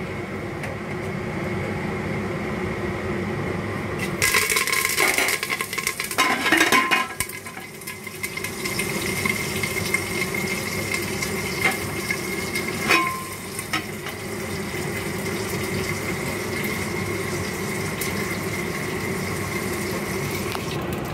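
Curry leaves going into hot oil in a pressure cooker base, spluttering and popping loudly about four seconds in. The sound drops once a glass lid covers the pot, leaving a steady sizzle with one metallic clink about halfway through.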